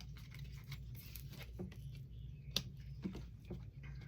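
Scattered light clicks and taps of small objects being handled, with one sharper click about two and a half seconds in, over a steady low hum.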